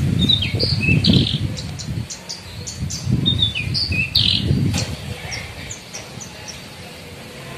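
Caged Horsfield's bush lark (branjangan) chirping: two short bursts of quick high call notes, about a second in and again around three to four seconds in, over a low rumbling background.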